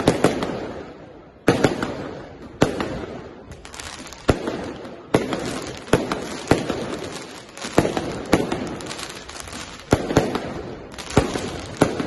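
Aerial fireworks shells bursting in an irregular volley of sharp bangs, roughly one a second with some in quick pairs, each followed by a fading echo.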